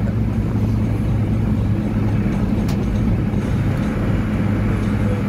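Cabin noise of a Fiat car being driven at road speed: a steady engine drone under the rumble of the tyres on the road.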